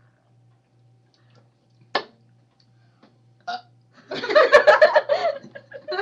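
A long, loud burp that starts about four seconds in and runs on, after a single sharp click about two seconds in.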